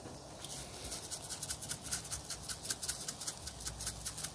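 A spice shaker being shaken quickly over the meat, its dry seasoning rattling about six times a second, starting about half a second in.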